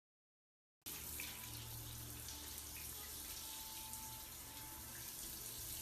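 Water running steadily, starting abruptly about a second in.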